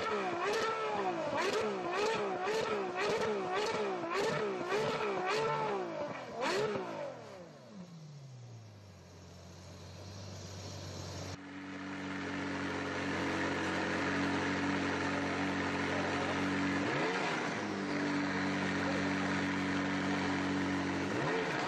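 Supercar engine held at high revs, its pitch swinging up and down about twice a second, then rising once and falling away as it fades into the distance. After a sudden cut, another supercar engine idles steadily and is blipped twice briefly.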